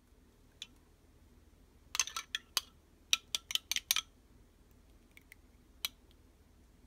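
A metal spoon clinking against a small glass bowl while stirring a thin syrup. About two seconds in there is a quick run of about a dozen sharp clinks lasting two seconds, then a few lighter taps near the end.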